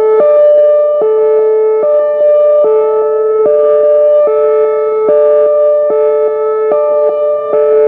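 Whelen Vortex R4 electronic outdoor warning siren sounding its hi-lo tone during a siren test. A loud chord of steady tones switches back and forth between two pitches a little more than once a second.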